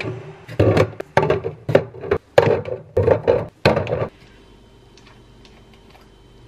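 Small red-capped bottles of ginger shots knocking and clattering as they are set one after another into a plastic fridge door shelf: about nine sharp knocks in four seconds, then a few faint clicks.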